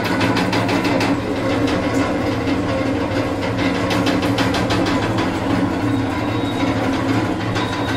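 Electric areca nut cutting machine running: a steady motor hum with rapid, irregular clicking from the cutting mechanism.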